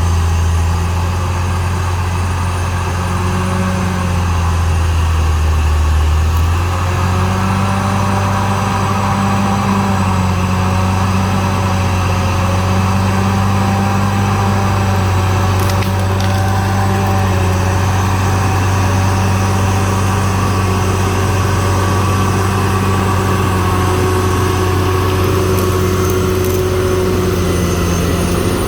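CAT D6R XL bulldozer's diesel engine running steadily under load. About four seconds in its pitch dips for a couple of seconds, as the engine lugs down, then comes back up and holds.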